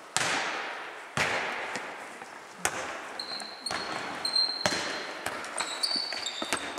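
A foot-tennis ball being kicked and bouncing on a wooden sports-hall floor: a series of sharp smacks, each with a long echoing tail. Short high squeaks of shoes on the floor come in the second half.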